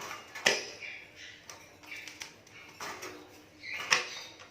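Asian pied starling (jalak suren) calling: a run of short, harsh chattering notes and sharp clicking calls, the loudest about half a second in and again near the end.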